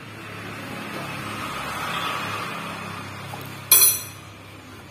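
A single sharp metallic clink, like a steel part or tool knocking against metal, about three-quarters of the way in. Behind it is a rushing noise that swells and then fades, over a faint low hum.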